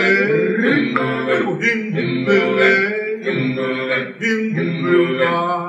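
Background music: a song with singing voices.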